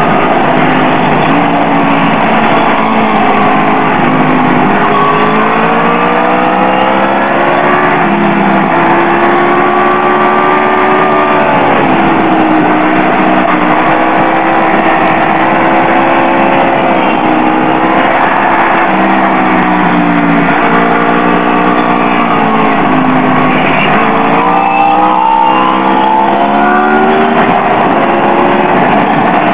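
BMW S1000R inline-four engine at speed on a racetrack. Its pitch climbs under acceleration and drops off again several times, over steady wind rush on the onboard microphone.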